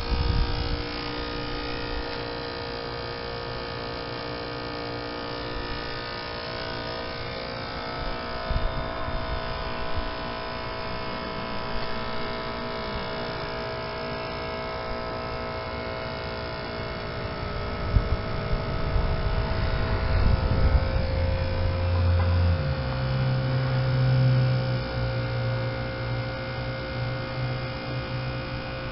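Heat pump outdoor unit running as it finishes its defrost cycle: a steady compressor hum with several steady tones. About two-thirds of the way through, a deeper hum comes in, steps up in pitch and stays louder.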